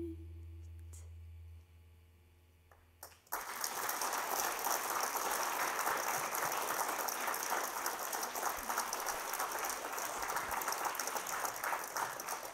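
The band's last low chord fades out, and about three seconds in an audience breaks into applause that goes on steadily.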